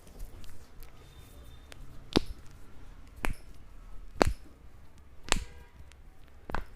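Neck joints cracking: five sharp pops, roughly one a second.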